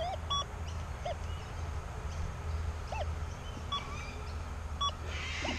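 XP Deus II metal detector giving short, steady electronic beeps as its coil sweeps over a 50-cent coin test target: one just after the start and two near the end, each a target signal. Faint short bird calls sound in the background over a low steady hum.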